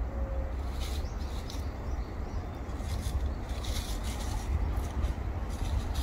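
Scattered rustling and crackling in dry fallen leaves, in short irregular spurts over a steady low rumble.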